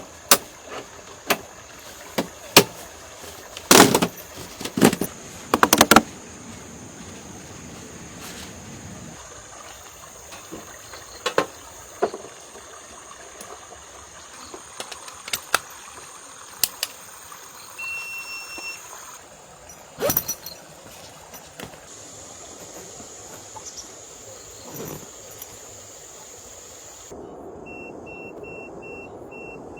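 Irregular sharp knocks and clicks, thickest in the first few seconds, over a steady hiss. Near the end comes a run of about five short electronic beeps.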